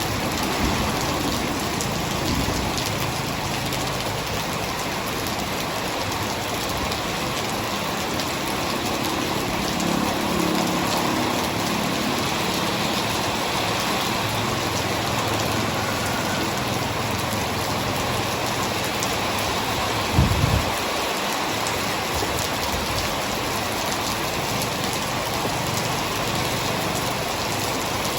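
Heavy rain falling steadily in a dense, even hiss, with a faint low rumble through the middle and one short, sudden low thump about two-thirds of the way through.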